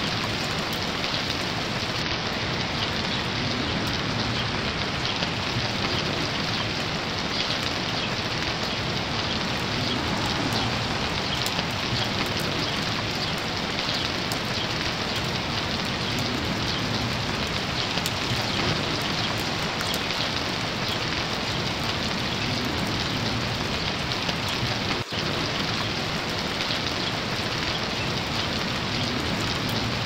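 Steady rain falling, an even hiss of drops with no letup, and one split-second drop in level near the end.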